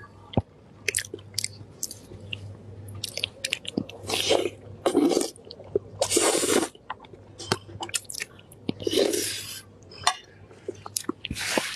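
Close-up eating sounds of a person biting and chewing a piece of meat, with many small wet mouth clicks and a few louder, longer slurps in the middle.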